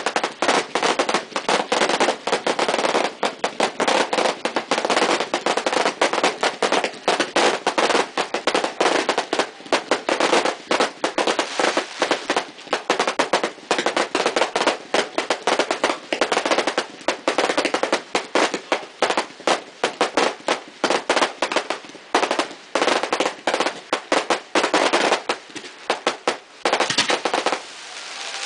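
Fireworks barrage: a rapid, dense string of bangs and crackling pops many times a second from low-level shells and cakes bursting, thinning out near the end.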